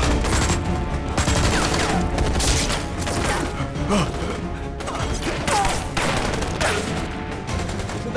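Gunfight: rapid, overlapping shots from rifles and pistols, over dramatic film score music, with men shouting and crying out.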